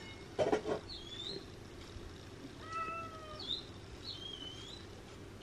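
A cat meowing once, a drawn-out call about three seconds in that falls slightly in pitch, among faint, short, high-pitched chirps.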